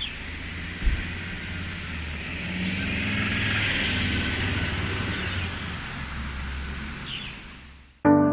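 Outdoor ambience of a low, steady vehicle rumble that swells around the middle and fades out near the end, with a short thump about a second in and a brief bird chirp near the start and again near the end.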